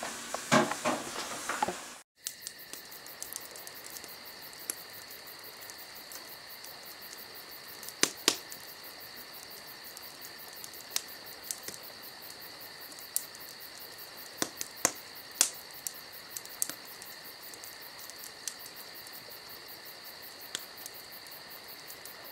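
Wood fire crackling in a metal fire pit, with sharp pops every few seconds, over a steady chorus of crickets chirping.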